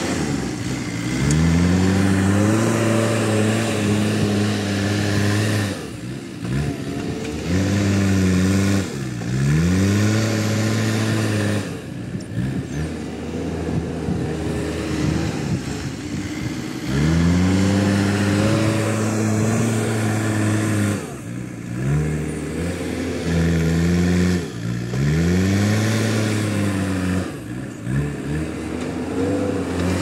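JCB 3DX backhoe loader's diesel engine revving up and dropping back again and again as the loader bucket pushes and lifts soil, each rise held for a few seconds.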